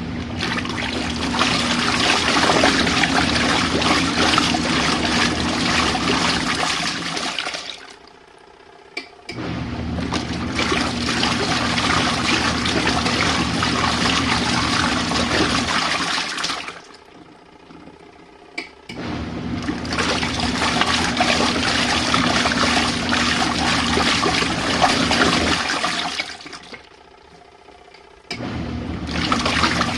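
Compact RV washing machine on its rinse cycle, its motor churning the water in runs of about seven seconds, with a pause of about two seconds between runs. There is a short click just before two of the restarts.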